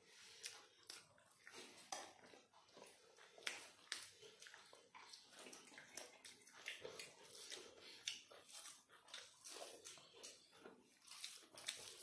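Quiet, close-up eating sounds: chewing and mouth smacks from people eating chicken curry and rice by hand, with irregular small clicks and squishes as fingers mix rice on steel plates.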